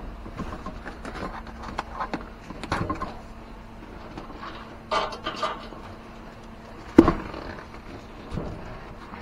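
Cardboard cartons being handled on a packing table: a refrigerator carton and an outer shipping box scraping and knocking, with one sharp thump about seven seconds in, over a faint low steady hum.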